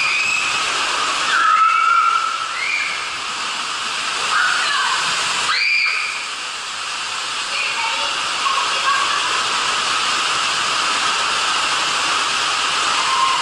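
Water rushing down a tube water slide, heard from the rider's tube: a steady loud hiss of flowing water and spray. A few short high squeals ride over it in the first six seconds.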